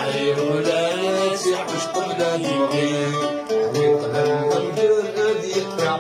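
A man singing a Kabyle song, accompanying himself on a plucked lute whose picked notes run steadily under his long held sung lines.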